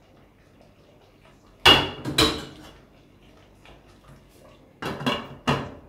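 Metal spoon and glass pot lid clanking against a stainless steel cooking pot: two sharp, ringing clanks about two seconds in, then three quicker ones near the end.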